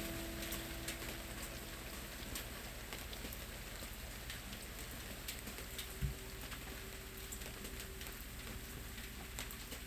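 Steady rain with scattered sharp drop ticks, as an acoustic guitar's last chord rings out and fades over the first second or two. A single low thump about six seconds in.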